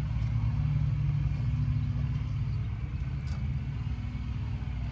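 Semi truck's diesel engine idling steadily, a low even rumble.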